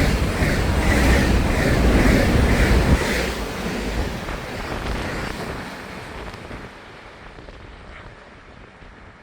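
A passenger train passing close by on the rails and moving away, its loud rushing noise with a rhythmic wheel clatter about twice a second fading steadily over several seconds.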